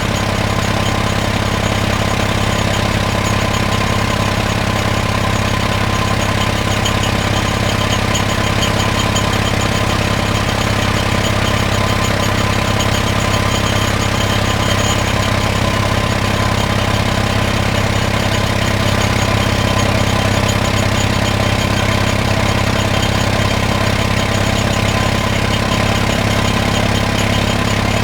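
1950 Caterpillar D6 crawler tractor engine running steadily at idle.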